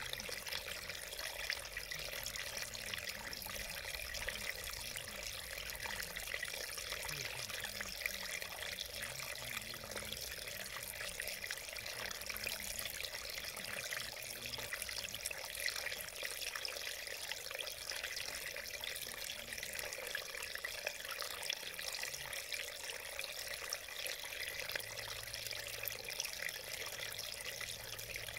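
Small mountain stream running and splashing over a rock step: a steady, unbroken rush of water.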